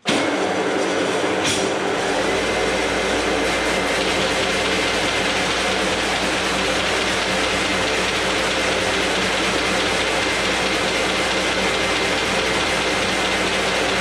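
MBO T49 buckle paper folder switched on: its motors, rollers and belts start abruptly and run on at a steady, loud even level. About two seconds in, a low hum and a steady high whine join the machine noise as a second drive comes on.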